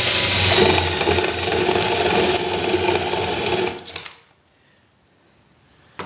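Cordless drill with a step bit boring a hole through the side of a tin can, the motor running steadily for nearly four seconds and then stopping.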